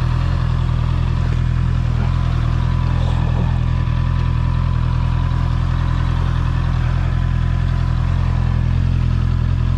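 Honda CBR650R's inline-four engine idling steadily at an even pitch.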